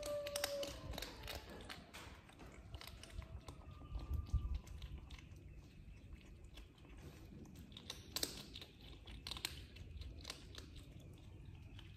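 Kittens crunching dry kibble: a dense, irregular run of small crisp crunches and clicks.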